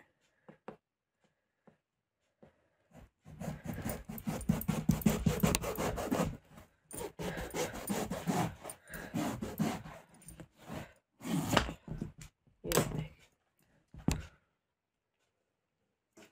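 Kitchen knife sawing through a whole ash gourd on a wooden tabletop: a long run of quick back-and-forth rasping strokes through the hard rind and flesh starts a few seconds in, then a few shorter separate cuts near the end as the gourd comes apart.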